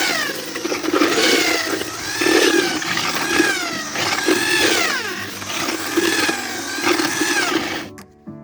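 Electric drill with a mixing paddle churning plaster mix in a bucket, its motor whine rising and falling about once a second under load, then cutting off near the end.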